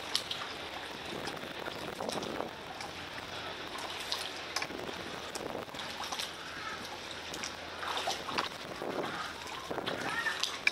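Water splashing, trickling and dripping around a kayak as it is paddled along, with irregular small splashes from the paddle blades.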